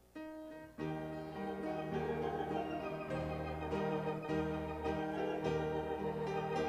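Organ music starting up: one held note, then full sustained chords from just under a second in, with a bass line moving beneath them.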